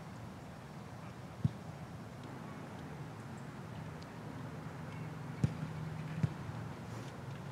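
Soccer ball being struck, three separate thuds: one about a second and a half in, then two close together near the end, the first of those the loudest.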